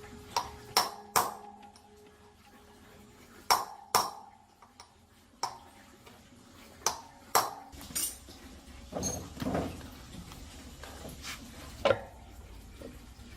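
Metal objects clinking and knocking together: about a dozen sharp strikes, each ringing briefly. The loudest come in pairs about a second in and three and a half seconds in, with another near the end.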